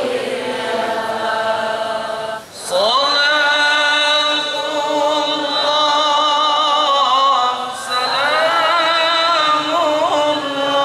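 A man's solo voice chanting Arabic Qur'an recitation in the melodic tilawah style into a handheld microphone: long, ornamented phrases with wavering pitch. He breaks for breath about two and a half seconds in and again near eight seconds, each time starting the next phrase with a rising glide.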